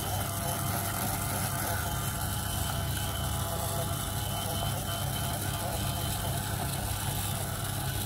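Small motor of a battery-powered toy iron whirring steadily, churning the beads inside its clear tank.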